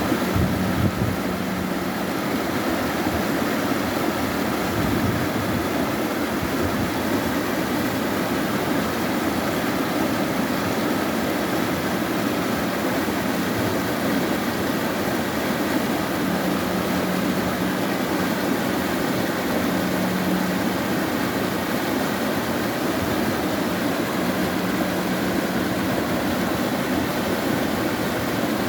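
Mountain stream water rushing and splashing over rocks in a steady, even rush.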